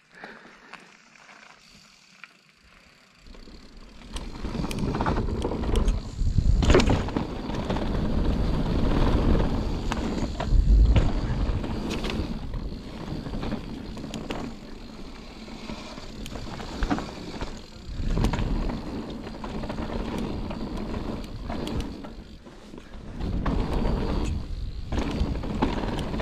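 Mountain bike ridden down a dirt bikepark trail: a continuous rumble of tyres and the bike rattling over rough ground, with sharp knocks from bumps and landings. It starts about three seconds in, after a near-quiet moment.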